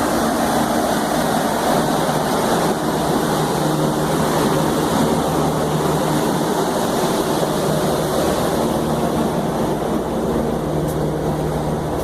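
Steady mechanical hum with a few low droning tones under an even rushing noise, holding unchanged throughout.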